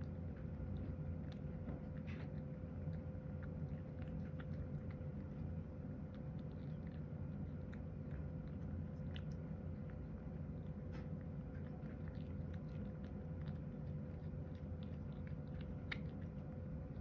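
A cat eating soft food of chopped carrot and bonito flakes from a ceramic bowl: small, irregular clicks and smacks of chewing and lapping throughout. A steady low hum runs underneath.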